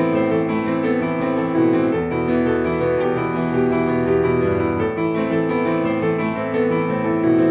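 Background instrumental keyboard music, steady sustained notes with no speech.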